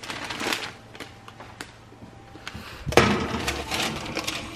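A parchment-lined baking tray being put into an oven: paper rustling and handling noises, then a sharp clatter about three seconds in as the tray goes onto the metal oven rack.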